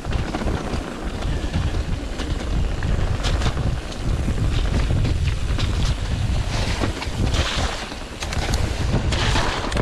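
Wind noise on the microphone of a mountain bike descending a dirt trail at speed, over the steady rush of its tyres on wet dirt. Scattered clicks and rattles come from the bike over bumps.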